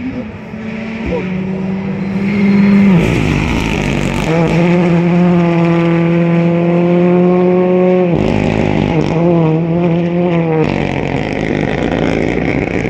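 A rally car's engine at high revs as it passes along the gravel stage, growing loud about three seconds in and holding a steady note, then cutting sharply about eight seconds in before the revs warble up and down and the sound falls away.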